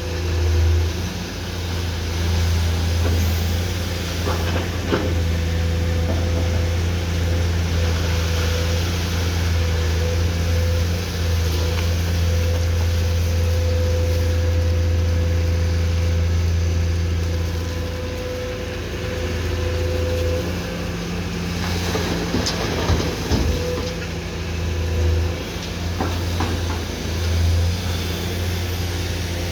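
Komatsu PC210-10M0 hydraulic excavator's diesel engine running steadily with a low drone while loading a dumper. A steady whine rides over it for several seconds in the middle, and a few short knocks and clatters come near the end.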